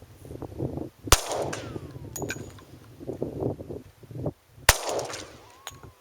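Two pistol shots about three and a half seconds apart from a stock Glock 20 firing 10mm Auto 180-grain full metal jacket rounds, each shot followed by a short echo.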